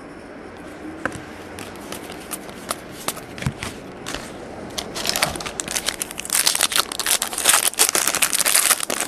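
Crinkling and tearing of trading-card pack wrappers and plastic as cards are handled: a few light clicks at first, then dense crinkling through the last four seconds.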